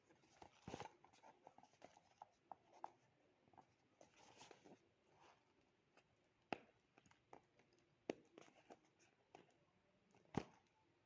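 Faint handling noises of a package and its contents: soft rustling and scattered small clicks and taps, with a sharper knock near the end.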